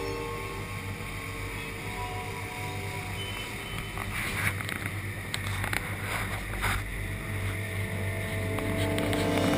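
Outboard-powered boat running at speed on open sea: a steady Mercury outboard drone under wind and the rush of the wake. Several sharp splashes of spray hitting the hull and camera come between about 4 and 7 seconds in.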